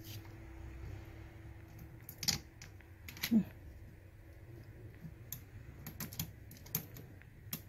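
Light, irregular clicks and taps of fingers and a crochet hook working inside a ball-jointed doll's hard resin head to pry out its glass eyes, with two louder clicks about two and three seconds in.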